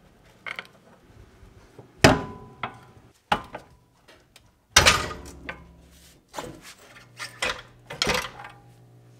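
Steel pry bar levering the rear torsion tube assembly of a Porsche 924S loose from its snug front bushings: a series of sharp metal clanks and knocks, the loudest about two and five seconds in, each ringing briefly.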